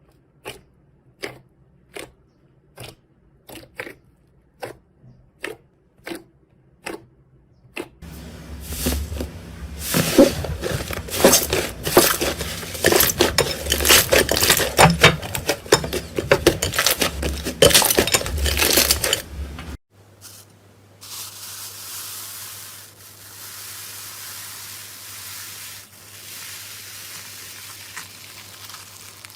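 Close-up ASMR sounds of soap and slime being handled. First comes a run of evenly spaced sharp clicks, about one and a half a second. After a cut there are several seconds of dense, loud crackling and crunching. Another cut brings a softer steady hiss over a low hum.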